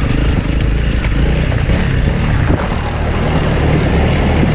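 Off-road vehicle's engine running steadily under load while crossing a river.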